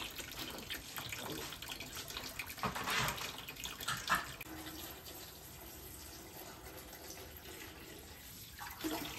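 Tap water running in a thin stream into a glass bowl of baby leaf salad greens in a stainless steel sink, splashing over the leaves. It gets louder for a moment about three and four seconds in.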